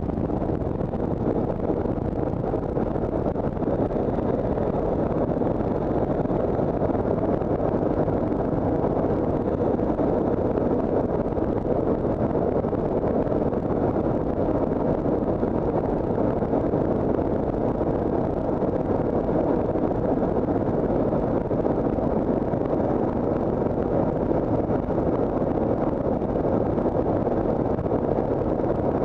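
Steady, loud engine and airflow drone inside the cargo cabin of a military transport aircraft in flight.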